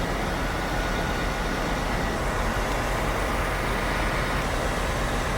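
Steady road-traffic noise: a continuous rumble and hiss of passing vehicles.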